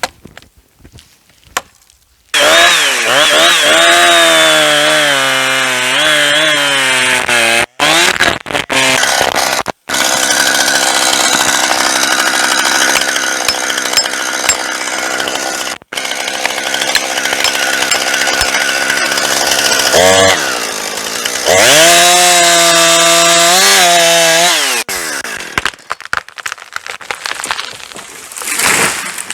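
Chainsaw starting up about two seconds in and cutting into a pine trunk to fell it, its engine speed rising and falling as it works, with a few brief breaks. It revs high again near the end and then stops.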